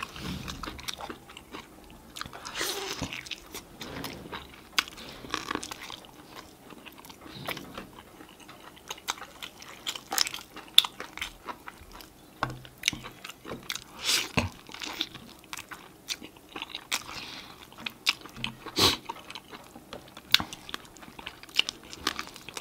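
Close-miked eating: chewing and biting into sauce-coated chicken wings and a sausage, with many sharp, wet mouth clicks scattered irregularly throughout.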